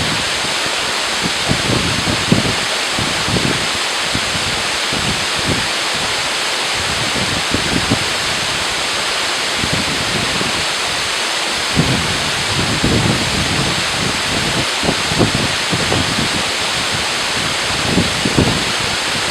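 Waterfall rushing steadily as a loud, even hiss, with frequent short low rumbles of wind buffeting the microphone.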